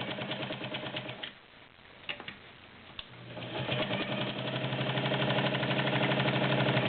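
Kenmore Model 50 all-metal sewing machine, 1.2 amp motor, stitching through three layers of garment leather. It runs with a fast, steady stitching rhythm, stops about a second in with a few light clicks during the pause, then starts again about three seconds in and keeps running.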